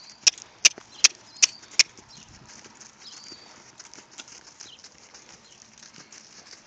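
A horse moving on a lunge line over grass: a quick, even run of six sharp clicks in the first two seconds, about three a second, then only faint soft footfalls and rustle.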